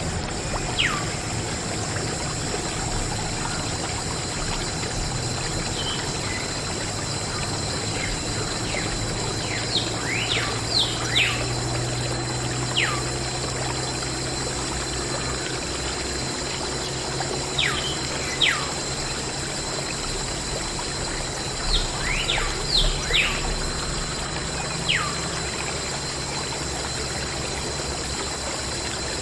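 Water pouring and trickling from a mini water pump's tube onto toy tractors, a steady splashing hiss. Short falling chirps come in small clusters several times over it.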